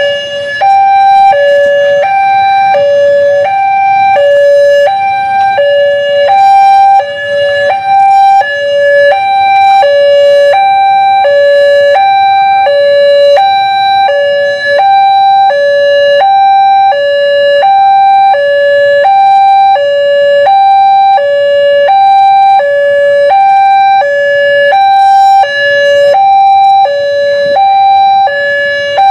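Railway level-crossing warning alarm sounding a steady two-tone signal, alternating evenly between a higher and a lower tone, about one high-low pair a second. It is the warning that a train is approaching the crossing.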